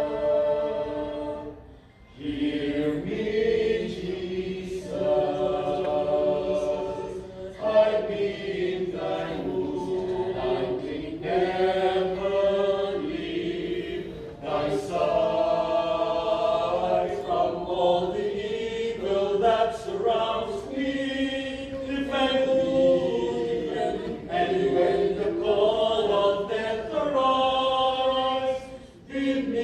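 A group of voices singing together in long held phrases, with short breaks between lines about two seconds in and near the end.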